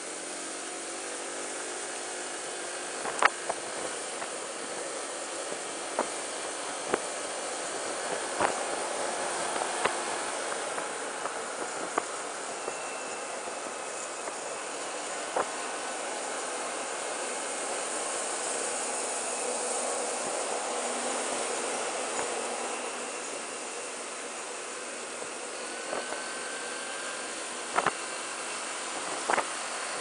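Wind and road noise picked up by a handlebar-mounted camera on a Honda PCX (KF30) scooter riding at expressway speed: a steady rushing hiss with no clear engine note. A dozen or so short sharp knocks are scattered through it, closer together near the end.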